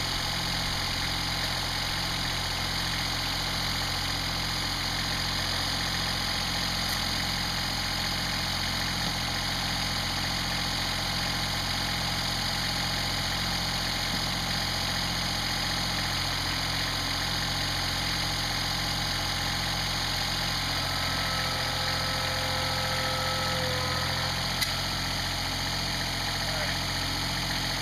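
Kubota compact tractor's diesel engine idling steadily, with a slow, even pulse in its note. A single sharp click near the end.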